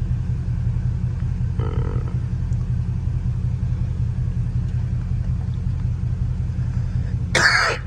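Catless exhaust of a Scat Pack's 6.4-litre HEMI V8, droning steadily at a cruise with no crackles or pops. Near the end comes a short, loud bodily noise from the driver that he had tried to hold in.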